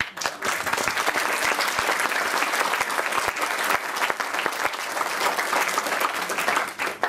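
Audience applauding, many hands clapping densely, stopping sharply near the end.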